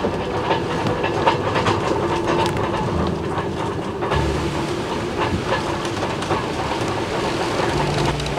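Sailboat riding out a gale of about 35 knots, heard from inside the cabin: a steady rush of wind and sea with irregular knocks and rattles from the rigging, halyards banging on the mast.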